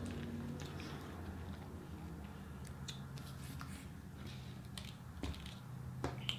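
Faint clicks and crinkles of a ketchup packet and paper food wrappers being handled, over a low steady hum.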